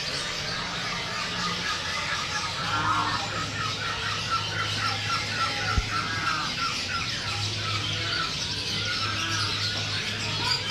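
Many caged birds chirping and calling at once, with one bird giving a fast run of short repeated notes in the middle.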